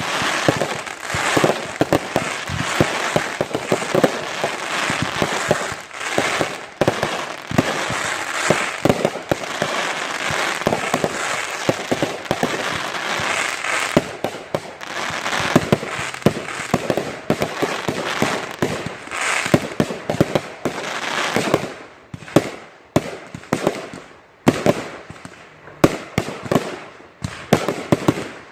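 Consumer fireworks going off in a dense, continuous barrage of bangs and crackling, thinning after about 22 seconds into separate loud pops with short gaps.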